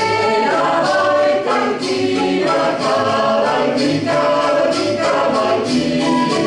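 Choir singing a traditional Italian folk song in several-part harmony, the voices holding and changing chords without a break.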